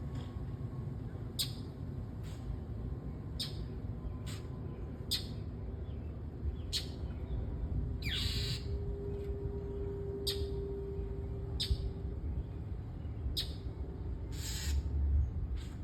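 A bird repeating short, sharp scolding calls about once a second, mobbing a cat to drive it out of its territory.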